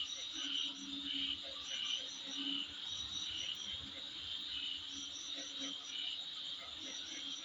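Insects calling in a chorus: a steady high trill with a chirp repeating about twice a second, and fainter lower calls underneath.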